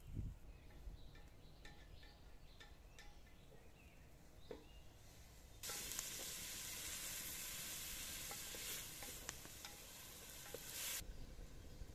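Chopped onion sizzling in oil in a metal pot while being stirred with a wooden spoon; the sizzle starts suddenly about halfway through and stops shortly before the end. Before it, only faint scattered clicks.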